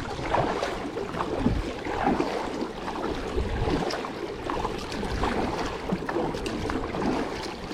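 Wind buffeting the microphone in uneven low gusts, with water sounds around a kayak.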